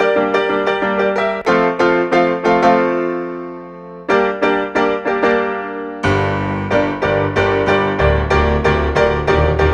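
Solo piano playing a slow instrumental passage. About three seconds in, a chord is left to ring and fade. Then the playing starts again and grows fuller, with deep bass notes from about six seconds in.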